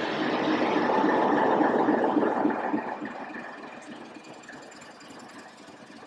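British Rail Class 31 diesel locomotive with an English Electric V12 engine, running as it passes close by. It is loudest over the first few seconds, then fades as the locomotive pulls away.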